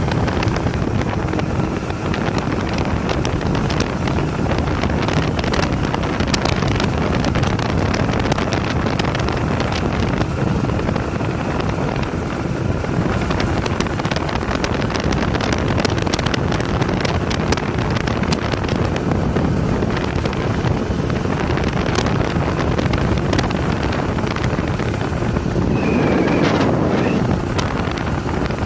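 Wind buffeting the microphone of a moving motorcycle, with the motorcycle's engine running underneath as it rides along a highway.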